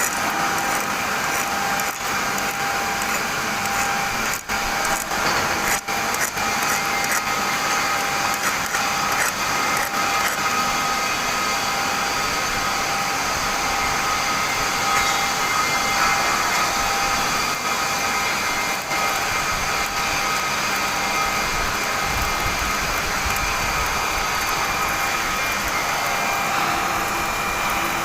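Electric welding arc hissing and buzzing steadily, with a couple of brief breaks in the arc early on.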